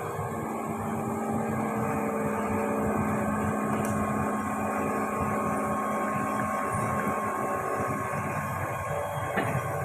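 Hitachi Zaxis 110 excavator's diesel engine running steadily as the machine works, with a single knock near the end.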